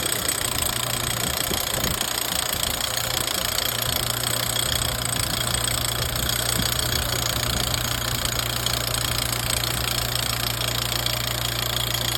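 Mini excavator engine running steadily, powering a hydraulic drilling rig.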